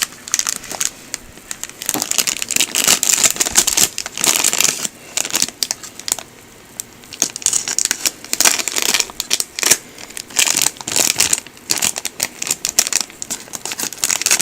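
Thin plastic bag being cut open and handled, crinkling and rustling in irregular bursts throughout.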